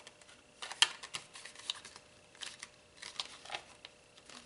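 HDPE hockey helmet half shell being handled and flexed in the hands: scattered light clicks, taps and brief rubbing of hard plastic, the sharpest click about a second in.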